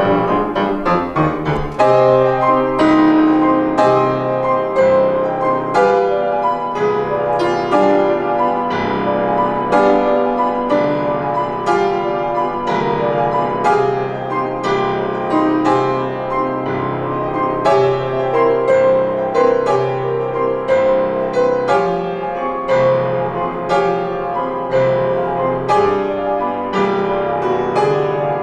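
Grand piano played four hands by two pianists: a continuous stream of notes and chords with sharp, regularly recurring accents.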